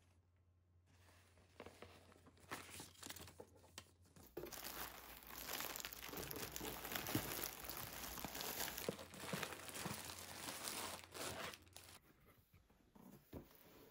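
Plastic packaging crinkling and rustling as bags of individually wrapped drip-coffee packets are handled and lifted out of a cardboard box. It comes in scattered rustles at first, then turns into dense, continuous crinkling about four seconds in, dying down again about twelve seconds in.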